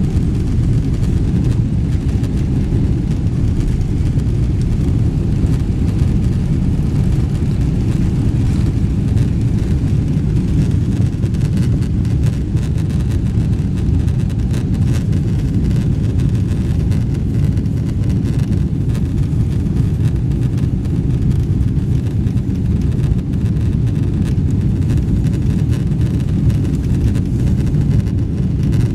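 Steady low rumble of a Boeing 777-300ER's GE90 engines and airflow, heard from inside the passenger cabin. It stays even, with no rises or breaks.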